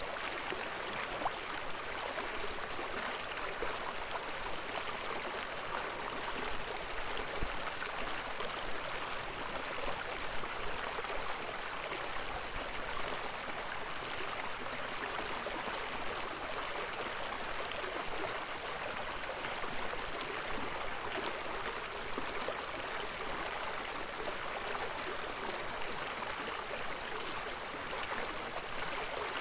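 Flowing river water: a steady, even rush, bright and hissy, with little low rumble.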